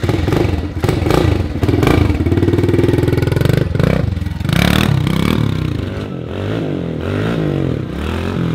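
Brand-new Kawasaki KLX110 pit bike's small single-cylinder four-stroke engine running. In the second half its revs rise and fall again and again as the throttle is blipped and the bike is ridden off.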